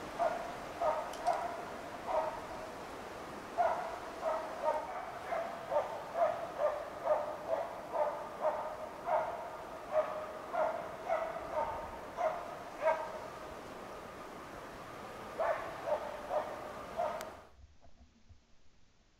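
Grey Norwegian elkhound baying at a moose it holds at bay: a steady run of barks, roughly two a second with one short lull, that cuts off abruptly about seventeen seconds in.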